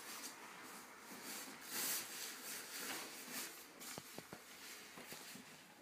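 A black plastic bag rustling in uneven surges as hands rummage through it, with a few sharp clicks about four seconds in.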